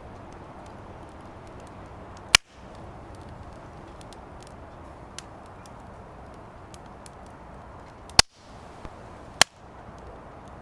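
Firewood burning in a fire pit: a steady low hiss of the fire with scattered small crackles, and three loud sharp pops from the burning wood, one about two seconds in and two close together near the end.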